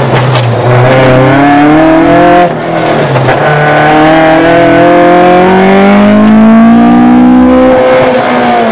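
Toyota AE86 Corolla's engine revving hard under throttle, heard from inside the cabin. Its pitch climbs, dips briefly about two and a half seconds in, climbs again to high revs, and falls away near the end as the throttle comes off.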